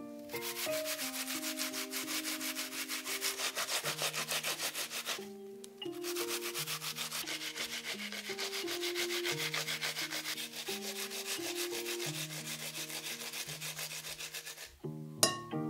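A peeled onion scraped in quick, even strokes, about five a second, down a flat stainless-steel hand grater, with a short pause about five seconds in. A single sharp knock near the end.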